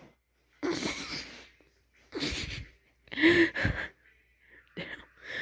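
A person's wheezing, breathy bursts of stifled laughter, four of them about a second apart.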